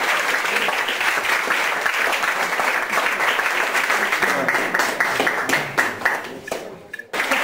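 Audience applauding: dense, steady clapping that thins out about six seconds in, drops away briefly near the end, then picks up again.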